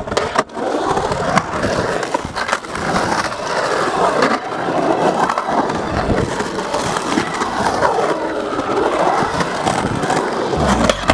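Skateboard wheels rolling on a concrete bowl: a continuous rumbling roll whose pitch rises and falls as the board carves up and down the walls. Sharp clacks of the board and trucks cut through it.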